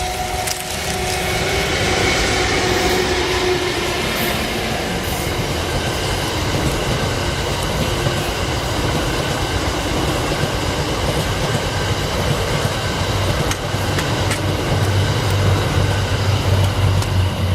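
A train of E26 series passenger cars hauled by an EF81 electric locomotive passing close by, with a loud, sustained rumble of steel wheels on rail. It builds over the first couple of seconds and then holds steady, with a deeper hum growing near the end.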